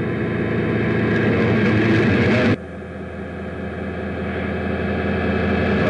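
Reversed audio playing back through an ITC spirit-communication setup: a dense droning noise that swells louder, cuts off suddenly about two and a half seconds in, then swells again.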